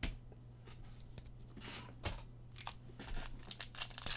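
Trading-card pack being handled and torn open by hand: light tap at first, then scattered wrapper crinkles and tearing that grow busier in the second half.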